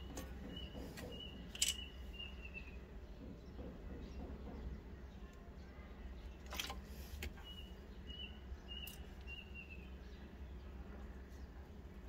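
A small bird chirping a quick run of short high notes that ends in a falling trill, heard twice. Two sharp clicks stand out, the loudest about one and a half seconds in and another past halfway, over a steady low hum.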